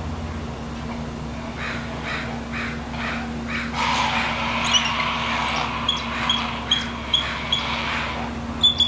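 Crows cawing: a quick run of about six harsh caws, then busier calling, followed in the second half by a row of short, high piping notes about every half second.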